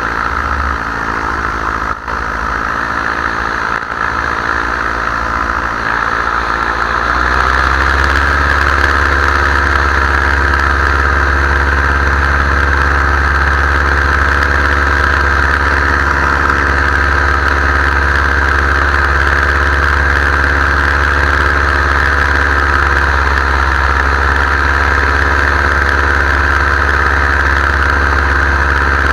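Paramotor engine and propeller running loud and steady; its pitch climbs about seven seconds in as the throttle opens, then holds at the higher speed.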